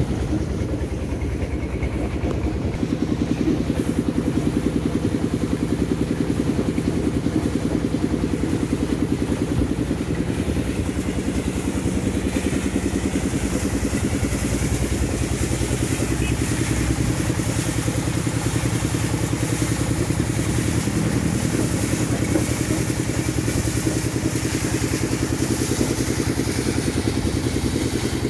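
Mini stone crusher plant running: a Dongfeng diesel engine chugging steadily with a rapid even beat, under the clatter of stone being crushed and carried through the screen and conveyor.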